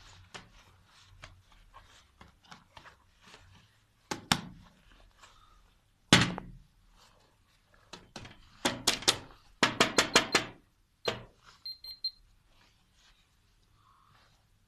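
Handling noise from objects being set down and moved on a wooden table. There is one heavy thunk about six seconds in, then quick runs of sharp clicks with a slight ring, and a few faint high pips about twelve seconds in.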